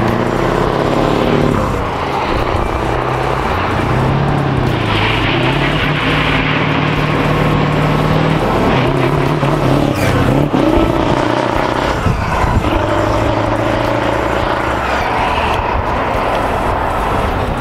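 Scania 164 and 144 V8 truck engines on open exhausts, running loud as the two trucks drive past one after the other, the engine note rising and falling several times.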